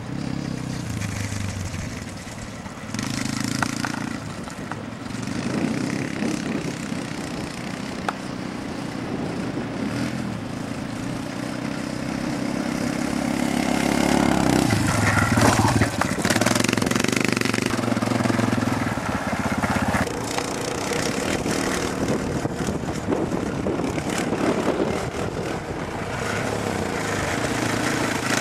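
Yamaha Raptor 250 ATV's single-cylinder four-stroke engine running and revving up and down as the quad rides over sand, loudest about halfway through.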